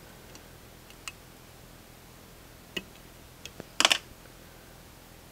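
Small, sparse clicks and ticks of a whip-finisher tool and thread being worked at a fly-tying vise, with a brief, louder clatter about four seconds in.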